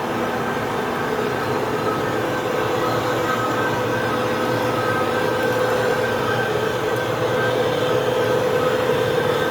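Machine tool running steadily as it machines a motor end bell's worn bearing bore, a prep stage before the bore is sleeved. It makes a steady whine over a hiss, growing slightly louder.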